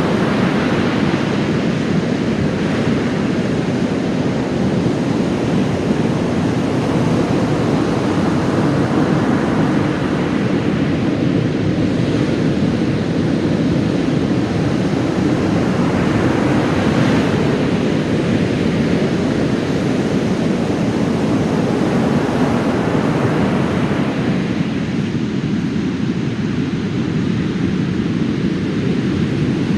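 Heavy storm surf left by a passing typhoon: large waves breaking and washing up a sandy beach in a continuous loud rush. It swells as waves crash near the start and again about 17 seconds in, and eases for a few seconds near the end.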